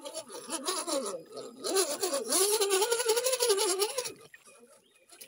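Electric motor and gears of a Carson RC rock crawler whining, the pitch rising and falling with the throttle, with water splashing as it drives through a shallow creek. The sound stops about four seconds in.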